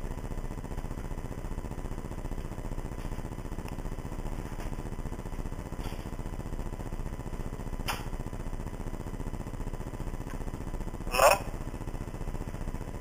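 Telephone line with the call on hold: steady hiss and faint hum, a few faint clicks, and one short, louder noise about eleven seconds in.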